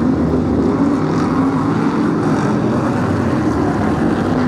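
BriSCA F1 stock cars' V8 engines racing at full power, a loud, continuous engine drone that rises and falls slightly in pitch as the cars circle the track.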